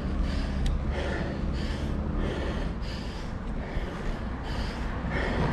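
Cyclist breathing hard and fast: rhythmic panting breaths, a little under two a second, from the effort of pedalling up a steep grade.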